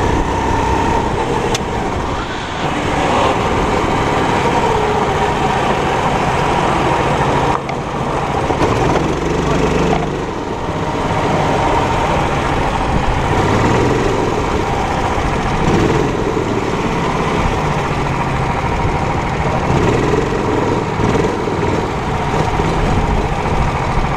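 A 270 cc four-stroke kart engine running under load, its note rising and falling with throttle through the corners and dipping briefly a few times as the driver lifts off.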